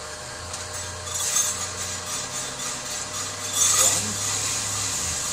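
Green coffee beans poured into a stainless steel flour sifter, rattling and clinking against the metal. The pouring swells about a second in and is loudest near four seconds, over a steady low hum.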